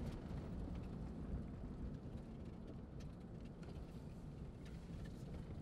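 Low, steady rumble of a car driving, heard from inside the cabin.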